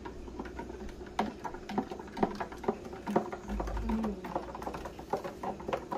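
Metal spoon stirring coffee in a glass, clinking irregularly against the sides.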